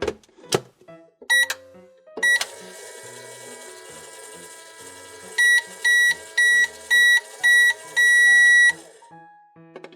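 Microwave being shut and started: a couple of clicks, keypad beeps, then the oven running with a steady hum. Near the end five short beeps and one longer beep sound, signalling the cycle is done, and the hum stops.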